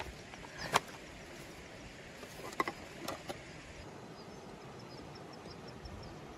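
A few sharp clicks and knocks from the tent and its gear being unpacked, over the steady hiss of a river below. From about four seconds in, a small high-pitched chirp repeats about three times a second.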